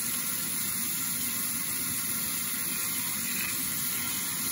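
Cold tap water running in a steady stream over two hard-boiled eggs held in a hand and splashing into a stainless steel sink, cooling the eggs so the shells peel easily.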